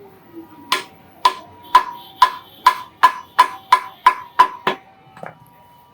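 Hand hammer striking iron on an anvil, eleven ringing blows that quicken from about two to about three a second, as a boti blade is forged. A fainter knock follows near the end.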